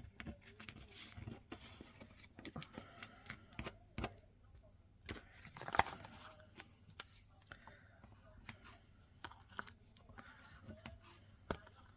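Small paper-crafting handling noises: scattered clicks, rustles and light tearing as adhesive foam dimensionals are peeled from their sheet and pressed onto die-cut cardstock pieces, with one louder scrape about six seconds in.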